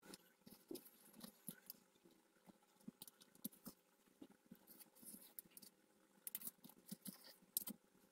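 Faint, scattered small clicks and scrapes of a knife and fingers prising steamed idlis out of the cups of a steel idli stand and setting them on a plate.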